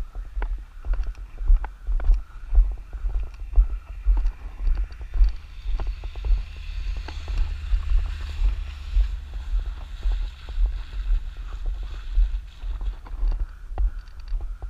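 Low, irregular thumping from a body-worn camera being jostled and buffeted by wind as a person walks a dirt road, with scattered footstep crunches. About halfway through, a pickup truck drives past close by, its engine and tyres on the gravel rising and then fading.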